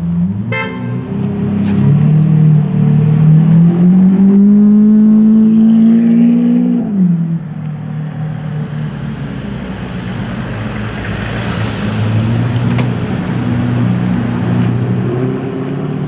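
DMC-tuned Lamborghini Aventador's V12 engine running low, its pitch rising steadily for a few seconds as it pulls away, then dropping back. A short toot sounds about half a second in.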